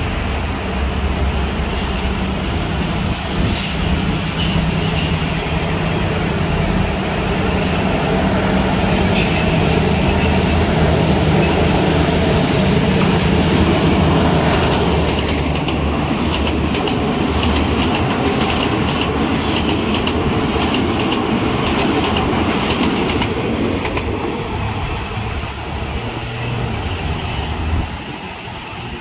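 An SRT Alsthom diesel-electric locomotive drones past, loudest about halfway through. Then the coaches' wheels clatter over the rails in quick clicks as the train goes by, and the sound fades away near the end.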